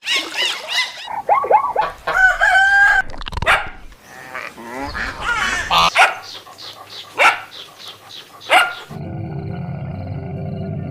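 A quick succession of different animal calls, among them chickens clucking, a rooster crowing and a dog barking. About nine seconds in, the calls give way to a steady hum with held tones.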